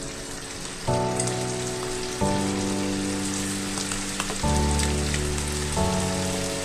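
Pork and vegetables sizzling and crackling in a pan, a steady hiss with fine pops, under background music of slow sustained chords that change every second or two.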